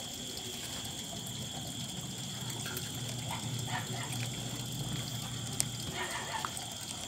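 Workbench room tone: a steady hiss and low hum with a faint high-pitched whine. A few faint short sounds come in the middle and again near the end, and there is one sharp click a little past halfway.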